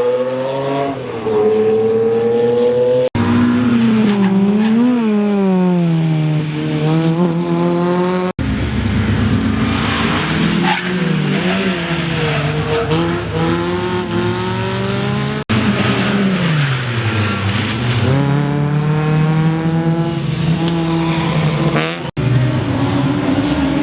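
Rally car engines revving hard, their pitch rising and falling, in several clips cut together with abrupt breaks between them.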